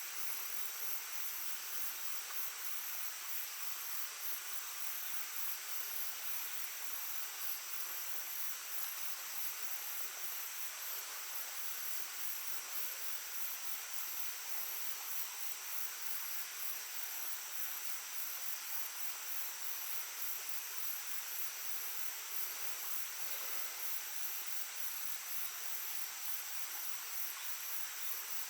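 Small stream babbling steadily over stones, with insects trilling in a continuous high, fast-pulsing chorus.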